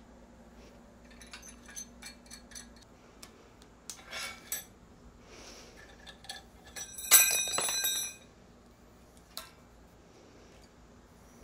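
Steel pipe fittings and the pressure gauge of a homemade rocket engine's oxygen line clinking and tapping as the assembly is handled. About seven seconds in, one louder metallic clank rings on for about a second.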